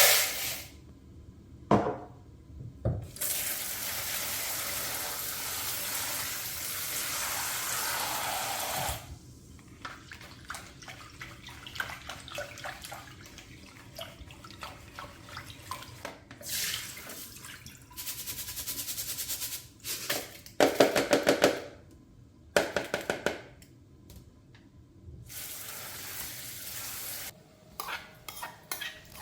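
Kitchen tap running into a sink for about six seconds, then small clicks and knocks of dishes and vegetables being handled. Near the end comes a loud, short ringing scrape, then the tap runs again briefly.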